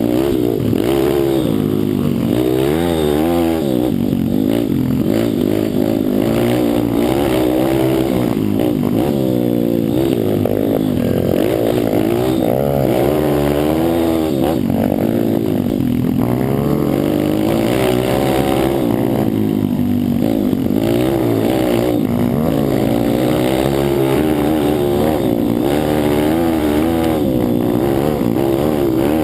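Pit bike's small single-cylinder engine being ridden hard, its pitch rising and falling again and again as the throttle is opened and closed.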